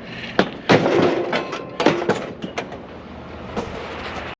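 Scrap metal pieces clanking and knocking together as they are handled and tossed. There are several sharp impacts, some with a brief metallic ring.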